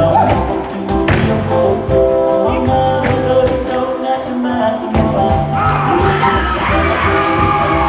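Music for a Tongan mako performance: singing over instruments with a heavy bass, the bass dropping out for about a second near the middle before coming back.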